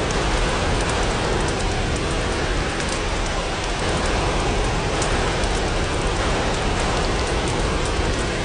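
Steady rain falling on glass, an even hiss with scattered light drop ticks.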